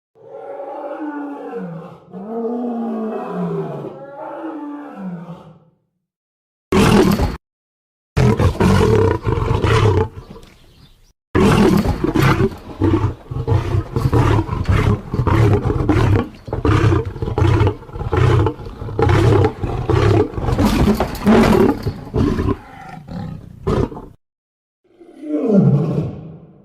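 A series of separate lion-style growls and roars used as sound effects for a lion character. First comes a long wavering growl of about five seconds, then a short loud burst near seven seconds. After that there is a long run of rapid, rough roaring pulses, about two a second, and a final short growl near the end.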